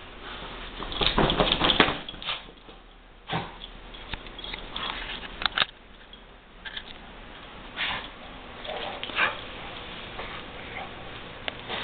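Pit bull sniffing and snuffling as it roots its head into a plush pet bed, in irregular short bursts, the loudest about a second in.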